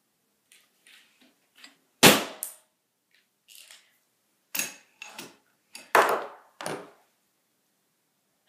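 Handling noise at a desk: a handful of sharp knocks and rustles as a small whiteboard and a piece of paper are put down and handled. The loudest knock comes about two seconds in, and four or five more follow over the next five seconds.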